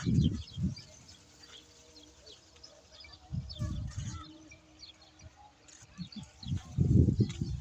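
Small birds chirping, many short high calls, with three loud low muffled bursts near the start, around the middle and near the end.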